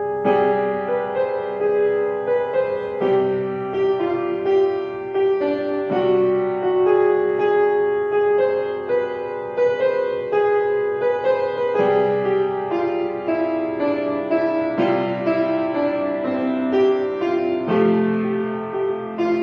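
Solo piano music: sustained chords struck anew every few seconds, with a melody moving over them.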